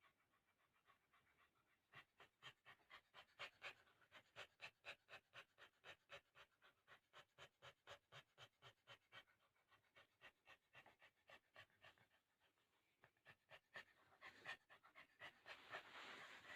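Dog in labour panting quickly and faintly, about four short breaths a second, with a brief pause a few seconds before the end; heavy panting of this kind comes with whelping contractions.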